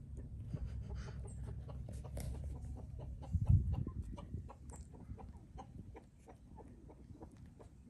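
Newborn puppies making small squeaks and grunts as they crawl, over a low rumble, with one louder thump about three and a half seconds in.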